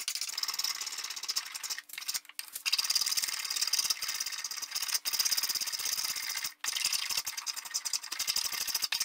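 Hand tool rasping and cutting at the end of a wooden chair stretcher: a fast, continuous scraping chatter that breaks off briefly about two, five and six and a half seconds in.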